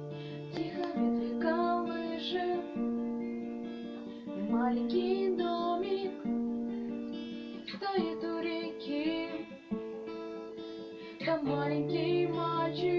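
Song accompaniment led by a strummed acoustic guitar over held chords, with a moving melody line.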